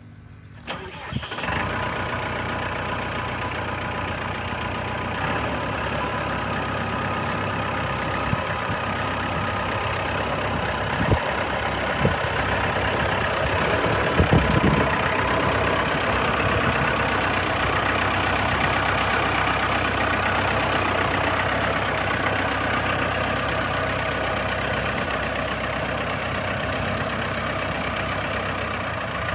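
Massey Ferguson 4355 tractor's diesel engine starting about a second in, then idling steadily. A few short knocks come near the middle.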